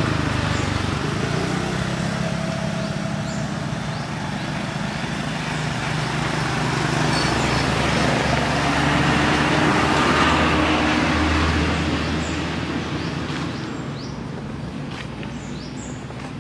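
Road traffic: a motor vehicle's engine and tyres going by, swelling to their loudest about ten seconds in and then fading away.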